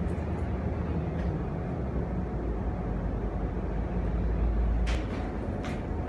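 Steady low rumble and hum inside a Taiwan Railways EMU800 electric multiple unit car, with two short hisses about five seconds in.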